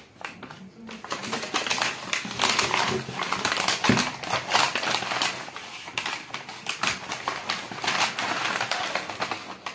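Brown kraft-paper mailer bag being torn open and crumpled by hand: dense, irregular paper crinkling and rustling, with a soft thump about four seconds in.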